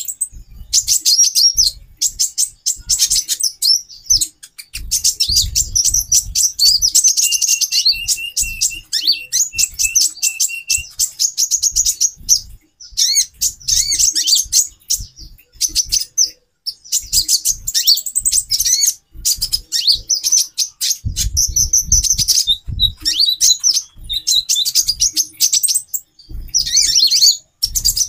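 Several female kolibri ninja (konin) sunbirds calling busily, with rapid, high, overlapping twittering chirps almost without pause and a steady trill from about 8 to 11 seconds in. Low thuds sound now and then underneath.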